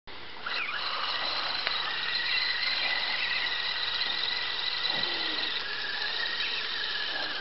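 Everest-10/SCX10 hybrid RC rock crawler's electric motor and gears whining steadily, a high-pitched whine with several held tones, as it drives through muddy water.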